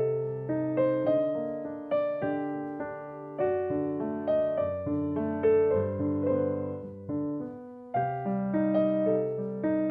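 Background piano music: a slow solo piano melody with notes struck every half second to a second, each ringing out, and a short lull just before about eight seconds in.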